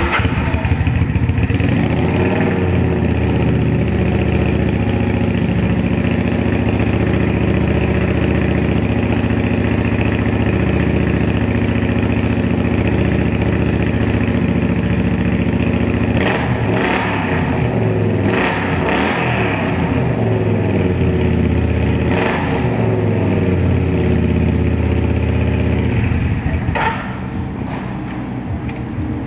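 2009 Kawasaki Vulcan 900 Custom's V-twin running at idle through custom heat-wrapped exhaust, with a custom air intake and K&N filter. It is blipped up and back down three times in the second half, then settles back to a steady idle.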